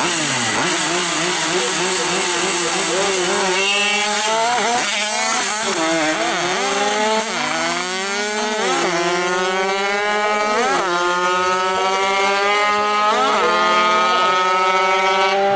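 Two two-stroke drag-racing mopeds launching and accelerating hard, each engine note climbing in pitch through a gear and then dropping sharply at the shifts, several times over. A steadier engine note holds underneath.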